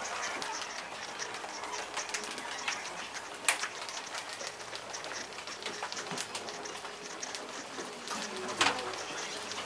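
Scattered light clicks and knocks over a faint hiss, with a sharper knock about three and a half seconds in and another near the end.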